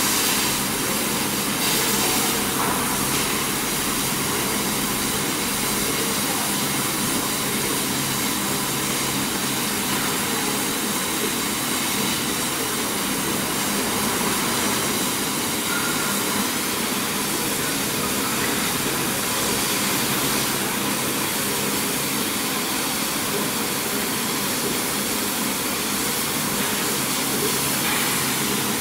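150W CO2 laser cutting machine cutting 5mm plywood: a steady, even rushing noise with a low hum under it, the blowers and motors of the running cutter.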